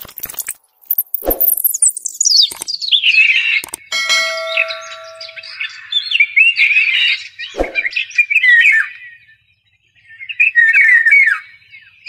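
Birds calling in quick chirps and rolling notes. A falling whoosh runs through the first few seconds, a short steady tone sounds about four seconds in, and there are two dull knocks.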